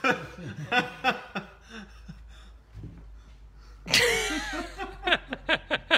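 Men laughing in short, rapid bursts, with one loud outburst of laughter about four seconds in.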